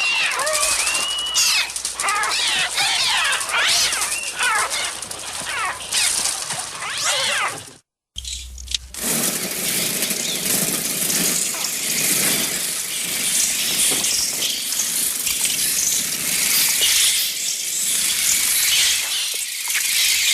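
Synthetic bird cries from a Mixtur-Trautonium. For about eight seconds, overlapping shrill screeches glide up and down in pitch. After a brief break they give way to a dense, hissing flock-like clamour without clear pitches.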